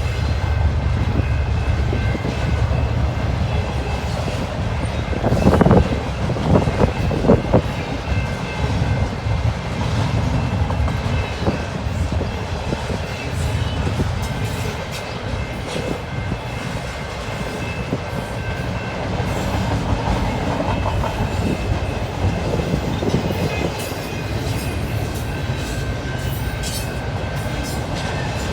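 CP Rail freight train rolling past: a steady low rumble of cars with wheels clacking over rail joints, and a few louder clanks about six to seven seconds in.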